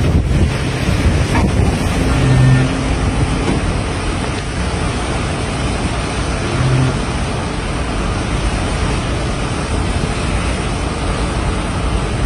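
Steady rush of sea water churned by a moving ship's bow wave and wake, with wind on the microphone. A brief low hum comes twice, a little over two seconds in and again near six and a half seconds.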